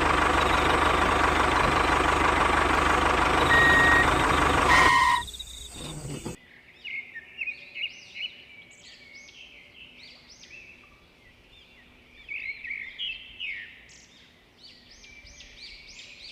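A machine runs with a steady, loud, engine-like noise and cuts off abruptly about five seconds in. About a second later, birds start chirping in repeated short calls that glide up and down, softer, until near the end.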